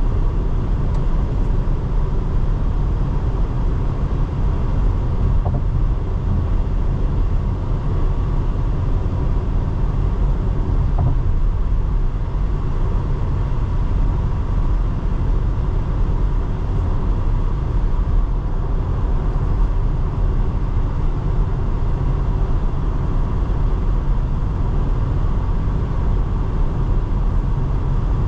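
2024 Porsche Cayenne on the move at a steady pace: an even, low rumble of engine and road noise, with no changes in pitch or sudden sounds.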